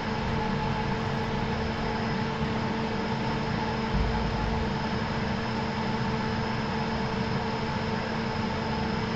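Steady machine hum from a DIY CNC milling machine as its axes feed slowly through a probing cycle with the spindle stopped, with a brief low swell about four seconds in.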